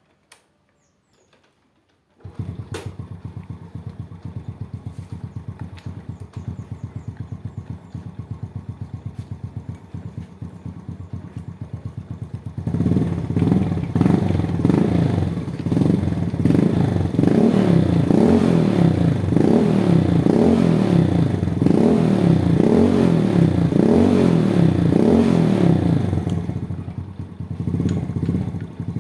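Edon ED15-5822 two-stroke chainsaw engine catching about two seconds in and idling with a rapid, even pulse. About halfway through it runs much louder, its pitch rising and falling roughly once a second, dips briefly near the end, then runs on.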